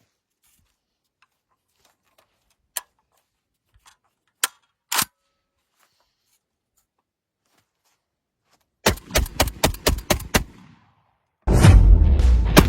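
A few sharp clicks, then a bull-pup shotgun firing a rapid string of about ten shots in roughly a second and a half, emptying a 10-round magazine of 50-gram shells. Loud music comes in near the end.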